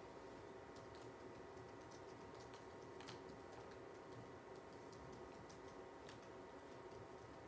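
Near silence: room tone with a faint steady hum and faint, irregular clicks and taps of students writing.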